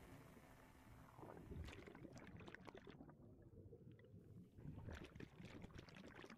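Faint underwater bubbling and crackling from streams of a scuba diver's exhaled bubbles rising past the camera, thinning out briefly midway.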